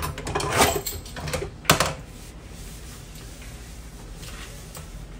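A few clicks and knocks of kitchen tools handled on the counter in the first two seconds, the loudest about 1.7 s in, while dough strips are cut and lifted.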